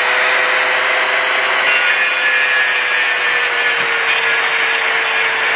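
Hand-held angle grinder running steadily, its disc grinding against wood to strip old dried glue from a chair's joint. A steady motor whine sits under the rough grinding noise.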